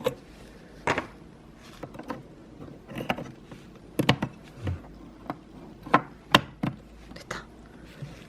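Scattered sharp clicks and knocks as the factory RAM modules are pulled out of the memory compartment of a 27-inch 2020 iMac, the loudest pair about six seconds in.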